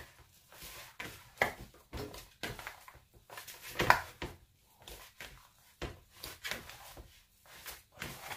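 Hands kneading a wet sourdough dough with cooked potato in a plastic bowl: irregular squelches, slaps and handling knocks, the loudest about four seconds in.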